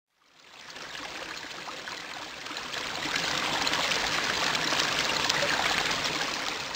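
Water pouring and trickling. It fades in from silence, grows louder about three seconds in and eases off near the end.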